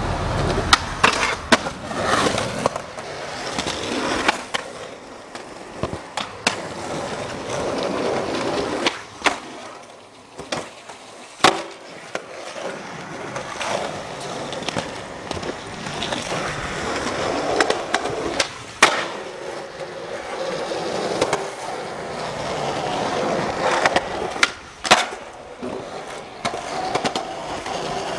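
Skateboard wheels rolling on concrete, broken by sharp clacks of the board's tail popping and the board landing, about a dozen times, several close together near the start and again near the end.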